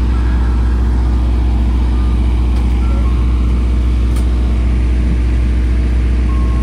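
Parked soft-serve ice cream truck running with a loud, steady low drone that holds the same pitch throughout, the sound of the truck kept running to power its soft-serve machines.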